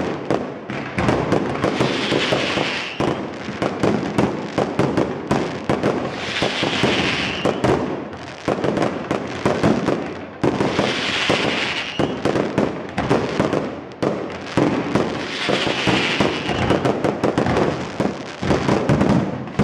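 Aerial fireworks display: a rapid, unbroken string of shell bursts and bangs, with a brighter high hissing flurry returning about every four to five seconds.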